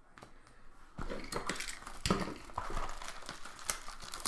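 Baseball card pack foil wrapper crinkling and rustling as packs and cards are handled, starting about a second in, with small clicks mixed in.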